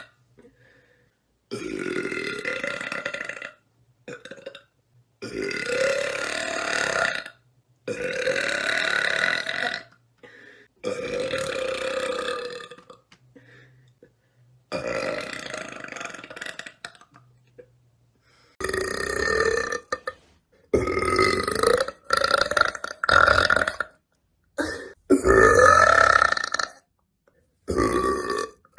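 A woman burping repeatedly: a string of drawn-out bassy burps of about two seconds each, then a quicker run of shorter burps in the second half.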